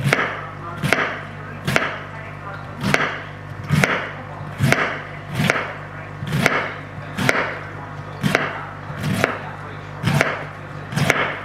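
Kitchen knife slicing red cabbage super thin on a cutting board. It gives a sharp tap with a short crunch at each stroke, in an even rhythm of a little more than one cut a second.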